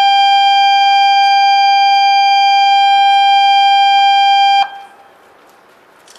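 A loud, steady electronic warning tone at a single pitch, cutting off suddenly about four and a half seconds in. After it, only the low hubbub of the platform crowd, with a few faint clicks.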